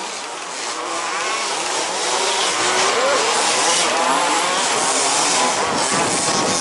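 Several radio-controlled 2WD racing buggies running on a track together, their motors rising and falling in pitch as they accelerate and brake, getting louder over the first two seconds as the pack comes closer.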